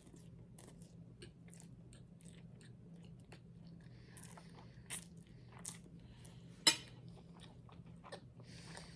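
A person chewing and crunching food close to the microphone: scattered small mouth clicks and crunches, with one sharp, loud crunch about two-thirds of the way through.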